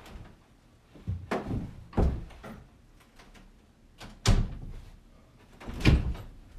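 A room door being handled and shut: a series of knocks and thuds, the two loudest about four and six seconds in.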